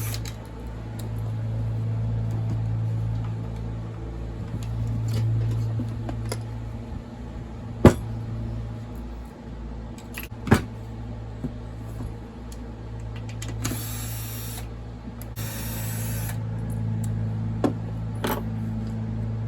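A lawn mower engine running steadily in the background, its hum fading and returning. Over it come the sounds of hand tools working on a chainsaw under disassembly: two sharp knocks, and two short bursts of hiss a little past the middle.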